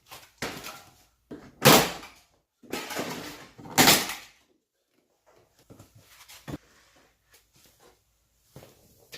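A run of loud plastic knocks, rattles and scrapes as a car door trim panel is pulled off and handled, the loudest about two and four seconds in, followed by a few lighter clicks and one sharp click.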